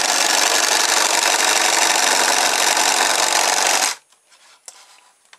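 Oscillating-toothbrush motor buzzing steadily as it turns a cam that waggles a bamboo-skewer flipper arm on a polystyrene toy paddle boat; the buzz cuts off suddenly about four seconds in.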